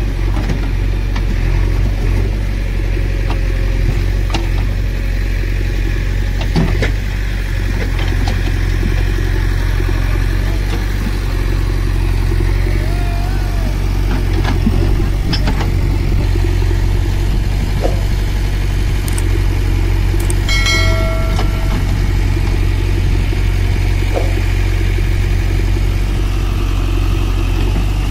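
Heavy diesel machinery engines running steadily at a low, even drone, with scattered clicks and knocks. About three quarters of the way through, a short steady tone with several overtones sounds for about a second.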